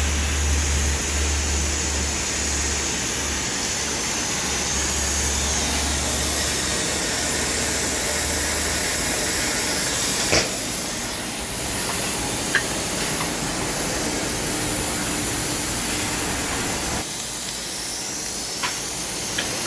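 High-power (12,000 W) fiber laser cutting 30 mm thick steel plate: a steady, loud hiss from the cutting head's gas jet blowing through the molten kerf. A low hum runs under it for the first half, and a few sharp clicks stand out, once about ten seconds in and again near the end.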